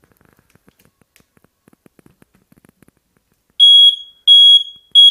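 Domestic smoke alarm sounding its test alarm after its test button is pressed: three loud, high-pitched beeps in quick succession, starting a few seconds in, showing the alarm is working. Faint small clicks come before the beeps.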